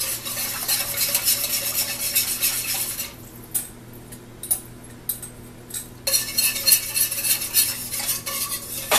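Wire whisk beating cornstarch slurry into gravy in a stainless steel pan: rapid scraping and clinking of metal on the pan as the gravy thickens. It pauses about three seconds in and starts again about three seconds later.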